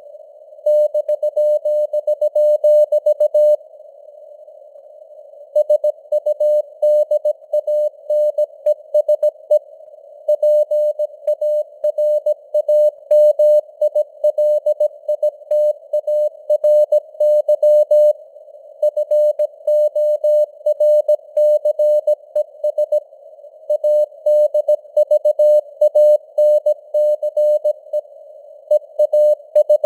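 Morse code (CW) sent at 17 words per minute: a single mid-pitched tone keyed on and off in dots and dashes, with longer pauses between words. Under it runs a faint hiss of simulated radio noise, and the signal strength wavers with simulated fading (QSB).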